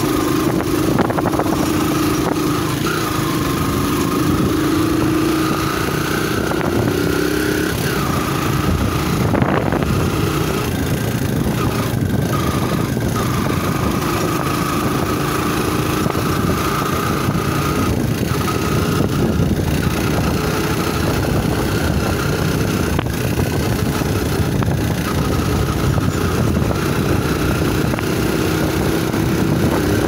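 Motorcycle engine running while the bike is ridden along a dirt track, its pitch rising and falling with speed, over a steady rush of wind and road noise.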